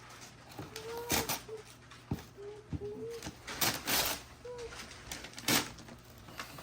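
A toddler making short cooing, babbling sounds a few times, each one sliding up and down in pitch, while wrapping paper rustles and crackles in sharp bursts.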